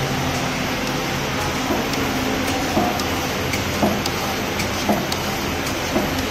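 Mechanical punch press die-cutting foam sheet fed from a roll: a steady machine hum with a short thump of the press stroke about once a second from around three seconds in, and light clicks between them.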